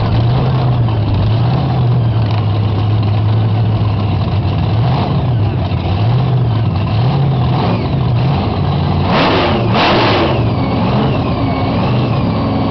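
JCB backhoe dragster's engine being revved up and down over and over, with two short loud bursts about nine and ten seconds in, then a thin whistle that rises and falls.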